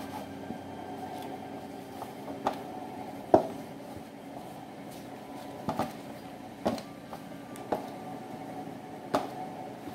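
Bench scraper cutting through dough and knocking sharply on the board beneath, about eight short knocks at irregular intervals, the loudest a little over three seconds in, over a steady background hum.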